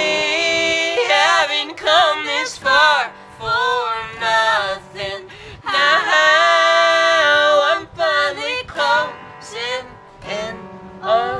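A man and a woman singing a folk duet together in harmony, with gliding phrases and a long held note partway through. It is the closing passage of the song.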